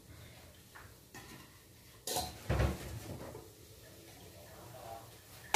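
Metal tongs clinking and scraping against a metal pot lid as it is gripped and lifted off the pot: a few light clicks, then a louder clatter about two seconds in with a dull knock just after.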